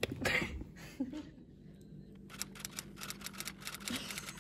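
Mustard squeeze bottle squirting briefly at the start. From about halfway, a rapid run of typewriter-style key clicks plays as a text caption is typed out on screen.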